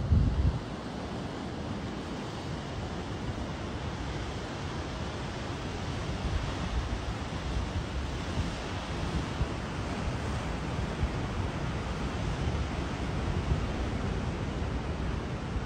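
Ocean surf washing over and pouring off rocks, a steady rush of water. A gust of wind rumbles on the microphone right at the start.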